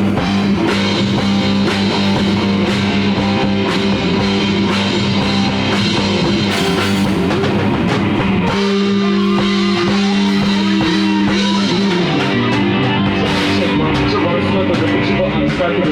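Rock band playing loudly in a rehearsal room: drum kit with cymbals and electric guitars, held notes over a driving beat, recorded on a mobile phone.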